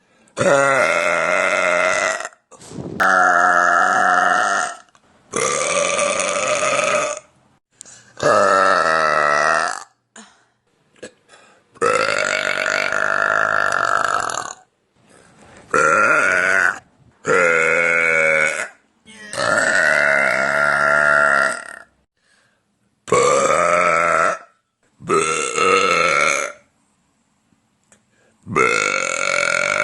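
A woman burping loudly, about eleven long, drawn-out burps in a row, each lasting one to two and a half seconds, with short pauses between them.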